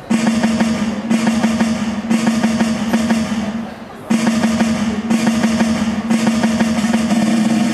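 Music opening with a rapid snare drum roll that starts abruptly, breaks off briefly about four seconds in, then starts again.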